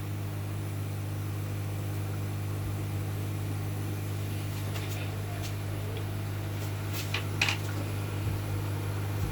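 Hot air rework station's blower running steadily with a low hum while it heats a charging IC on a speaker circuit board, with a few faint ticks from about halfway through.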